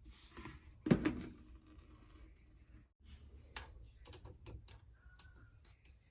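A single loud knock about a second in that rings briefly, then after a short break a run of light, irregular clicks.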